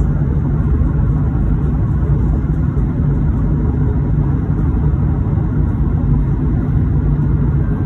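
Steady low rumble of an Airbus A220 airliner's jet engines and airflow, heard inside the passenger cabin during descent.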